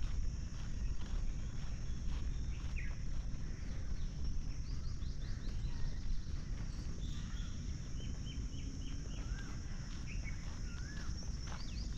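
Birds chirping and calling in the trees, their short notes coming thicker through the second half, including a quick run of repeated notes and a few rising-and-falling calls near the end. Under them, a walker's footsteps on the paved path and a steady low rumble.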